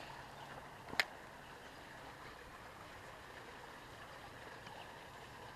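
A spinning reel's bail snaps shut with one sharp click about a second in, just after a cast. Otherwise only faint outdoor background hiss.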